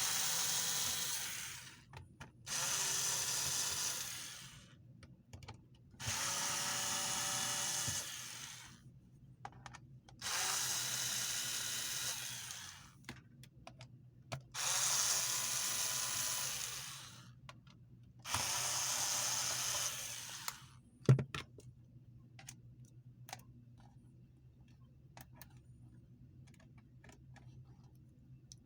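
Small electric screwdriver running in six bursts of about two seconds each, backing out the laptop's bottom-case screws. A sharp click about 21 seconds in, then scattered light clicks.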